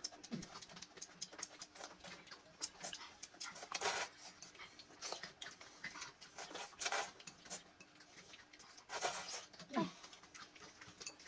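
A person eating close to the microphone: a steady stream of wet chewing and lip-smacking clicks, with louder bites or slurps about 4, 7 and 9 seconds in.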